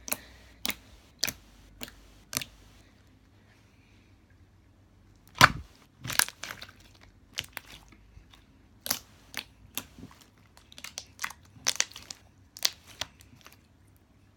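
Glossy blue slime being pressed, poked and folded by hand against a tabletop, giving a run of sharp irregular clicks and pops, the loudest about five seconds in.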